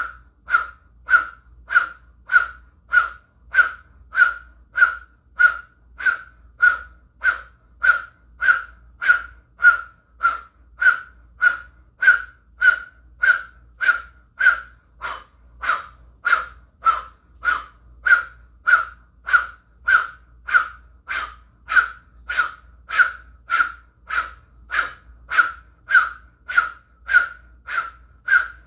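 Kundalini breath of fire done through an O-shaped mouth: fast, forceful, rhythmic puffs of breath, nearly two a second, each with a slight whistling tone, keeping an even pace throughout.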